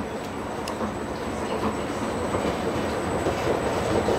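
Steady low background noise of an underground tram station concourse, with a faint high whine held throughout and a single faint click about two-thirds of a second in.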